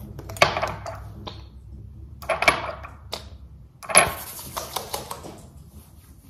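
Small hard items being handled and set down on a hard surface: three bursts of clicking and clattering about two seconds apart.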